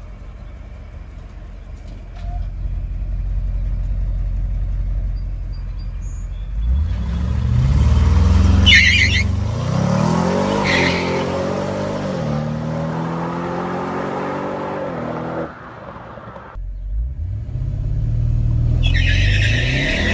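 Audi RS7's twin-turbo 4.0-litre V8, APR Stage 1 tuned, running low at first and then accelerating hard through the gears, its note climbing with each gear and dropping at each shift, with short sharp noises at two of the shifts. The engine backs off suddenly about three-quarters of the way in, then pulls hard and climbs again.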